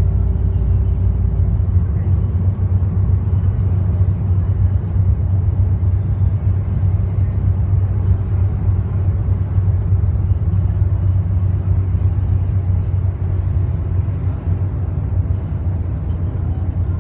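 Cummins ISL six-cylinder diesel of a bus cruising at steady road speed, heard from inside the passenger cabin as a steady low drone with road rumble.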